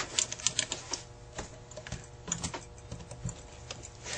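Light, irregular metallic clicks and taps of a screwdriver and small parts on a Carter AFB carburetor while the choke housing is being fitted.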